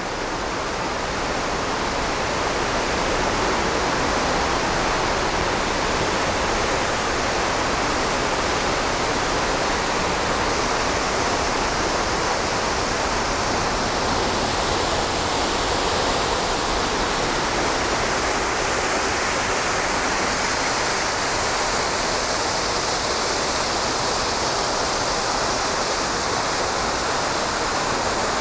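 Steady, loud rushing noise that builds over the first few seconds and then holds even.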